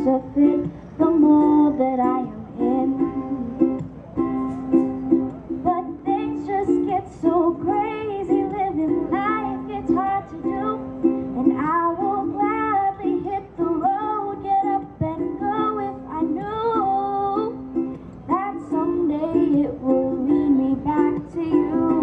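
Ukulele strummed in a steady rhythm, with a woman's singing voice coming in about six seconds in and dropping out a few seconds before the end.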